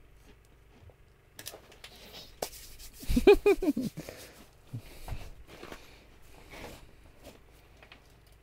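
Scattered rustling and clicks of hands handling fishing gear and clothing. A short vocal exclamation comes about three seconds in.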